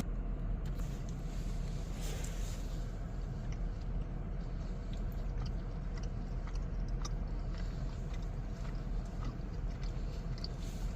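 Someone chewing a mouthful of donut, with small soft mouth clicks scattered throughout, over a steady low rumble.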